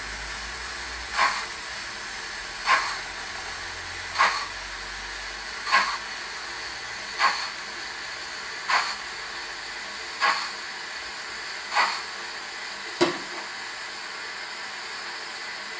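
Sound-fitted model of the 0-4-0 saddle tank locomotive Invincible, its sound unit playing slow steam chuffs about every second and a half over a steady hiss. About 13 seconds in there is a sharper click, and then the chuffs stop while the hiss goes on.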